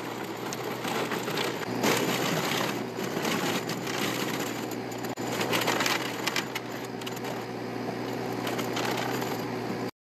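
WoodMaxx MX8600 PTO wood chipper, driven by a compact tractor, chipping branches: irregular crackling and splintering of wood over the steady hum of the tractor and the chipper's spinning flywheel. The sound cuts off abruptly near the end.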